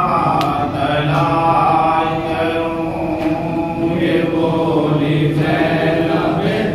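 A man reciting a noha, a Shia Muslim lament, in a slow chanted melody with long held notes, sung into a microphone.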